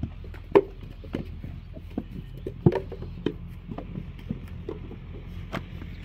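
Irregular knocks and thuds of hand work with clay and brick moulds, a dozen or so sharp strikes at uneven spacing, the loudest about half a second in and near three seconds in, over a steady low hum.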